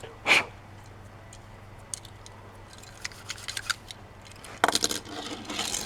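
Small clicks and light rattling of a die-cast toy car being handled, with a short sharp sound just after the start and a quick run of clicks near the end.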